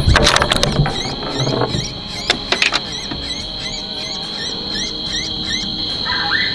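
Night-time outdoor chorus: a steady high insect drone with a short rising chirp repeating two or three times a second. A cluster of sharp clicks at the start and another about two seconds in come from handling the scoped air rifle.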